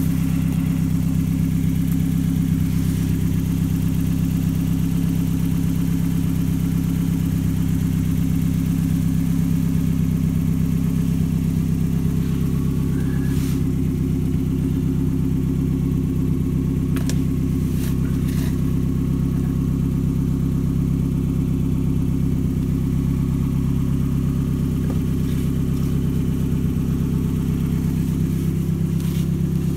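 Toyota Camry All-Trac's four-cylinder engine idling steadily, heard from underneath the car near its newly replaced exhaust pipe and muffler.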